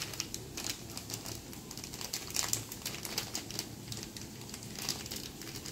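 Small clear plastic packet crinkling as it is handled, with the small plastic irrigation fittings inside it clicking against each other in many short, irregular ticks.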